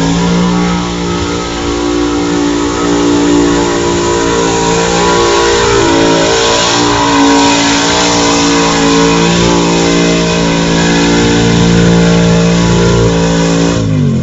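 Mud-bog truck's engine held at high revs as it pulls through a deep mud pit: a loud, steady drone with a brief wobble about six seconds in, falling away at the very end as the driver lets off.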